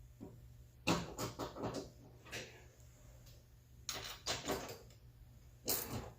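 Several short bursts of rapid clicking and clatter, about a second in, in the middle and near the end: hand tools and metal fasteners being worked while the door handle is tightened down inside a car door.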